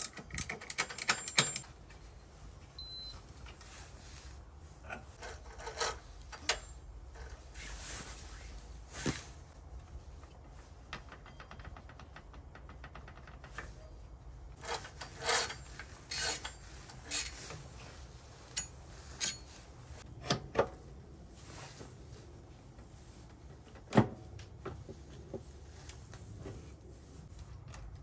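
Hand-tool work on a scooter's belt drive: a socket ratchet clicks rapidly as the front pulley nut is lightly tightened, then scattered metallic clicks, rubs and knocks of pulley and cover parts being handled and fitted. The loudest is a single sharp knock about 24 seconds in.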